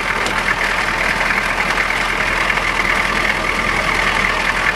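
GM 6.2-litre diesel V8 in a Chevrolet K5 Blazer idling, with a loud, steady rush of air over the engine. The owner has been chasing intake noise, suspecting a loose air cleaner.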